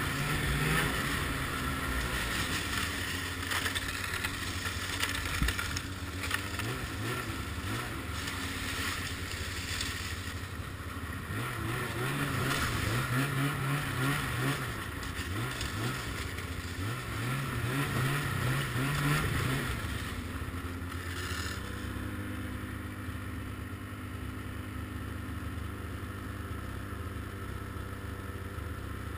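Ski-Doo MX Z 700 snowmobile's two-stroke engine running under way, its revs rising and falling a few times in the middle, then settling to a lower, steadier note near the end.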